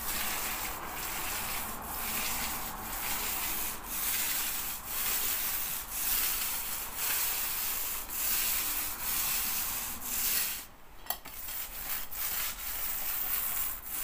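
Paint roller being rolled over a wall, laying on a coat of paint: a steady, crackly hiss that dips about once a second as each stroke changes direction, with a short break about eleven seconds in.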